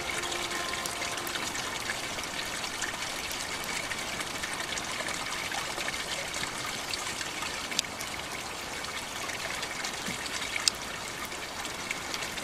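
Water trickling steadily into an aquaponic fish tank, with a couple of brief sharp drips in the second half.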